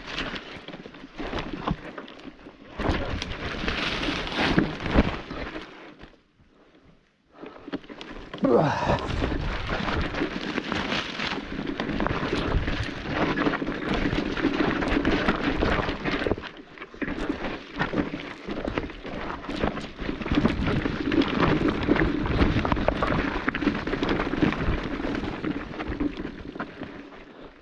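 Dense brush and branches rustling and scraping against the mountain bike, rider and camera while pushing through an overgrown trail. There is a brief quiet gap about six seconds in.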